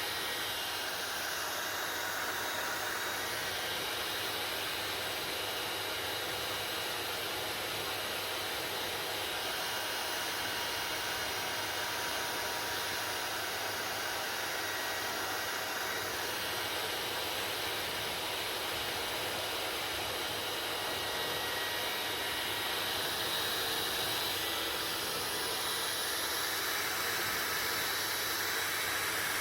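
Hair dryer running steadily: a continuous rushing hiss of air with faint steady whining tones from the motor.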